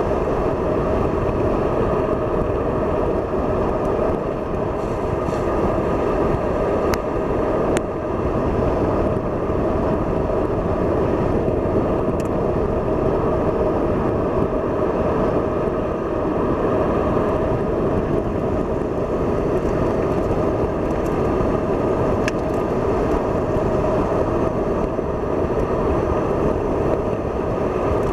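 BMW car being driven on a race track, heard from inside the cabin: a steady drone of engine and tyre noise.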